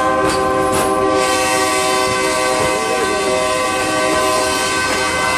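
A train sounding one long, steady blast of several notes at once on its horn, sustained without a break.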